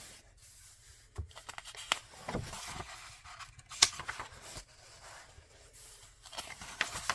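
Handling of a bound paper movie script: scattered taps, scrapes and paper rustles as it is turned over and opened, the sharpest click a little under four seconds in.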